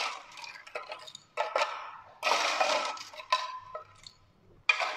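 Ice cubes being scooped from a metal container and tipped into a glass, clattering and clinking in several bursts, the longest about halfway through and a sharp one near the end.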